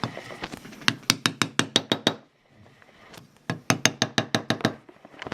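Two quick runs of small metallic clicks, about eight a second, with a short pause between, from the steel lockwork parts of a partly reassembled Reichsrevolver being worked by hand.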